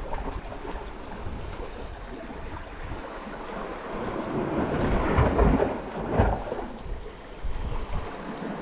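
Wind buffeting the microphone over sea washing around the rocks. It swells into a louder gusty rumble about four to six seconds in.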